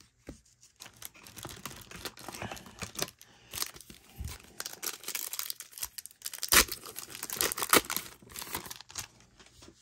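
Plastic wrapper of a 1991 Score baseball card pack crinkling and tearing as it is peeled open by hand, in irregular sharp crackles, loudest a little past the middle.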